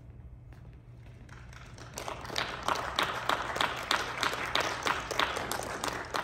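Audience applauding, with separate claps standing out. The applause builds about two seconds in and starts to fade near the end, over a faint steady low hum.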